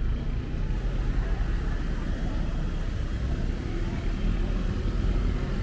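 Steady low rumble of city road traffic, with a faint haze of street ambience.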